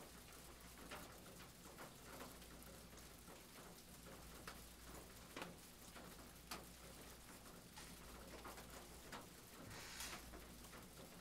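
Near silence, with faint irregular soft taps and scratches of a fine paintbrush working oil paint on canvas, and a brief hiss about ten seconds in.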